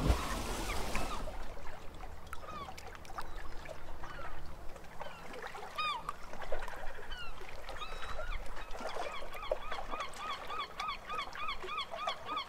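Birds calling: short, arched, honking calls scattered at first, then a steady run of repeated calls about three a second from about nine seconds in.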